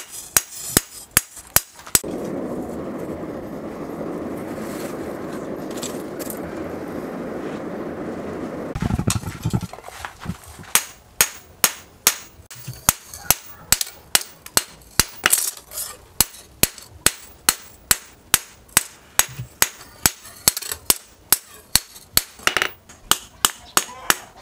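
Hand hammer beating a hot steel knife blade on a steel post anvil: sharp, ringing blows about two to three a second. After a few blows the hammering stops for about seven seconds while a steady rushing noise plays, then it starts again and keeps up.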